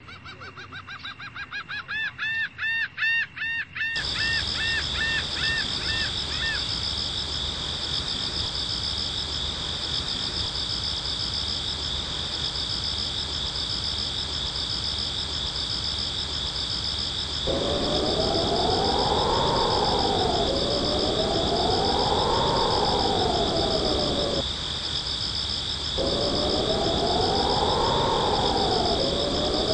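Abstract electronic soundscape. It opens with about four seconds of rapid repeated chirps, then settles into a steady, insect-like high hiss over a low hum. From about two-thirds of the way in, a tone slides slowly up and down about every three seconds, broken once by a short gap.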